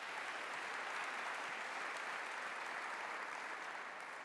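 An audience of students applauding steadily, easing off slightly near the end.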